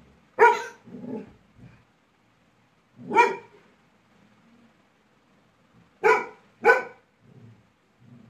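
Labrador retriever giving four short, sharp barks, the last two close together. These are angry barks at a new toy she dislikes.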